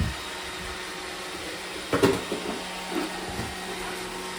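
Robot vacuum cleaners running with a steady hum, with a sharp knock about two seconds in and a softer one about a second later.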